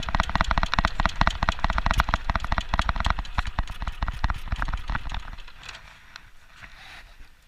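Rapid, dense crackling and sputtering from a lit fuse burning toward the dynamite charge. It thins out and fades after about five seconds.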